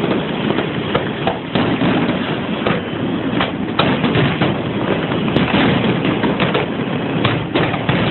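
A barrage of fireworks going off in quick succession: a dense, continuous rumble broken by many sharp bangs, heard through a phone's microphone.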